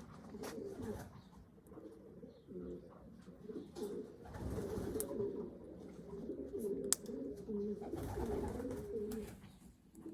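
Racing pigeons cooing in a small loft, several birds overlapping in a steady low warble, with a few sharp clicks, the loudest about seven seconds in.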